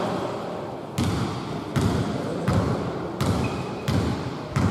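A basketball being dribbled on a hardwood court, about six bounces in an even rhythm of roughly one every 0.7 seconds, each a low thud with a short echo.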